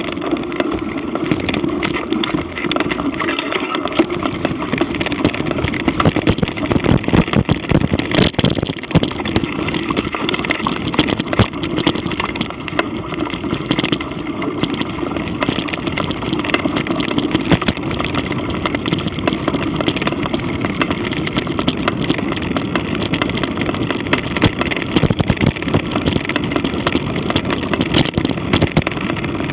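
Ride noise from moving fast over a rough trail: a steady rumble with many small rattles and knocks from the bumps.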